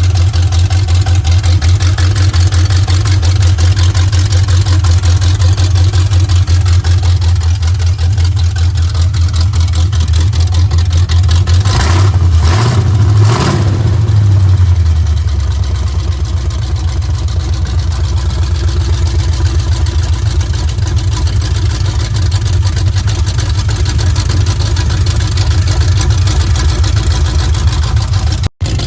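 1984 Chevy C10 engine running through open headers on a cold start, with a loud, steady fast idle. It is revved briefly about twelve seconds in, then settles to a lower, slower idle.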